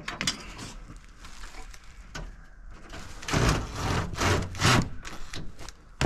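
Tool work on the mobile home's wooden band board: light scraping and clicking, then three short, loud, rough bursts of noise between about three and five seconds in.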